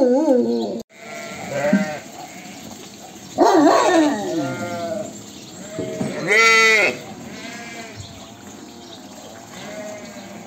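A crowded flock of sheep bleating, several wavering calls one after another from different animals. The loudest is about six and a half seconds in, and fainter bleats follow near the end.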